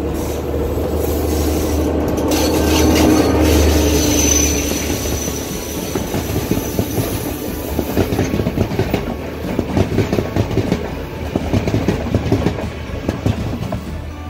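Diesel passenger train passing close by. The engine's low drone builds and is loudest a few seconds in as the power car goes past. After that the carriages' wheels clatter rhythmically over the rail joints, clickety-clack.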